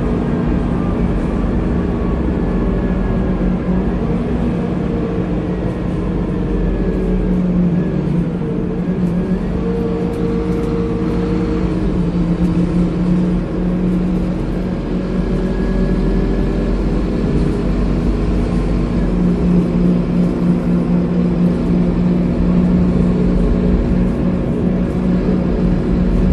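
Interior sound of a Scania K230UB bus on the move: its five-cylinder diesel engine and ZF automatic gearbox running under way, with a steady drone whose pitch shifts several times as the engine speed changes, heard from inside the passenger cabin.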